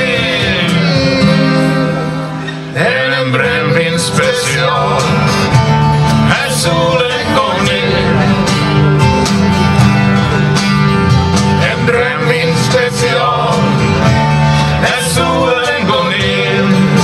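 A live acoustic band playing a country-style song, with strummed acoustic guitars and accordion. The music dips briefly about two and a half seconds in, then carries on at full level.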